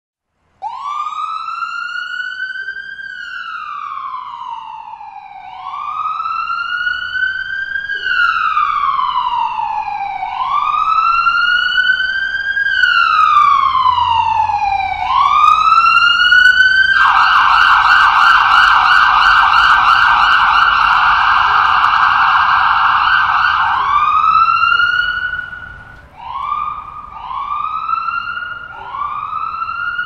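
Ambulance siren sounding a slow wail, its pitch rising and falling every few seconds. A little past halfway it switches to a rapid yelp, at its loudest. Near the end it goes back to the wail in shorter rising sweeps.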